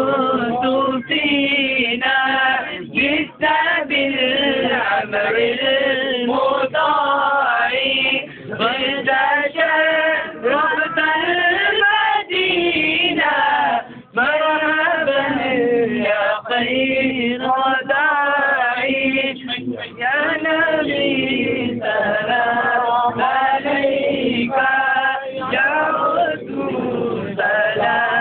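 Men's voices chanting Islamic devotional verses, sung continuously without instruments.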